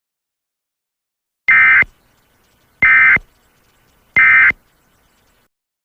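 Emergency Alert System end-of-message data bursts: three short, identical, buzzy warbling tone bursts about 1.3 s apart, each lasting about a third of a second. They mark the end of a broadcast severe thunderstorm warning.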